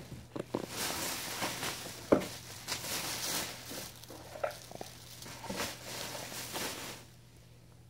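Close rustling and brushing noise from a baby's hair and clothing moving against and right beside a phone's microphone. It comes as a run of scratchy strokes and stops about seven seconds in.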